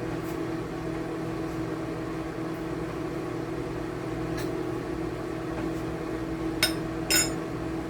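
A steady mechanical hum with a held low tone, like an appliance or fan running, with two short clinks about half a second apart near the end.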